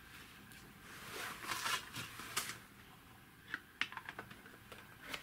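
Plastic electronics enclosure and circuit board being handled on a workbench: a rustling scrape about a second in, then a quick run of light clicks and taps near the end.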